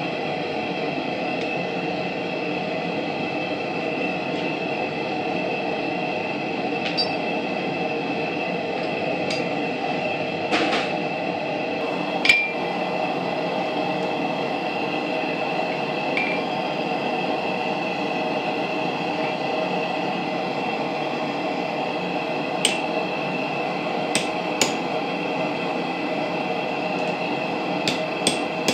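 Sparse hammer blows on a hot railroad spike held over the anvil, punching holes for bottle openers: single strikes spaced seconds apart, the loudest about twelve seconds in with a short metallic ring after it, and several quicker strikes near the end. A steady rushing noise runs underneath.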